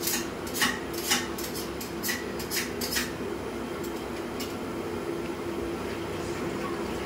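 Metal dishes and utensils clinking and clattering several times in the first three seconds, with one more clink a little later, over a steady low hum.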